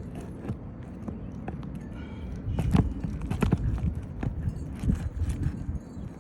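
Irregular knocks and thumps of hands-on work on an asphalt shingle roof, getting busier and louder about two and a half seconds in.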